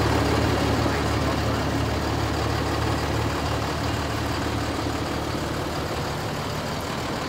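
2015 Ford F650's Cummins diesel engine idling steadily, a low even rumble that grows slightly fainter over the few seconds.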